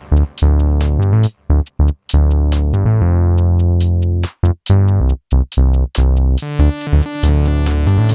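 Electronic music with a heavy synth bass and a drum-machine beat, broken into short stabs by several abrupt cut-outs of near silence.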